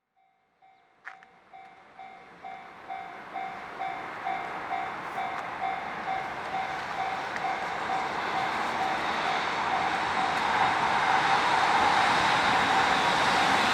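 A Japanese level-crossing warning bell starts up and dings a little over twice a second, while an approaching EF65-hauled freight train grows steadily louder until its running noise drowns the bell.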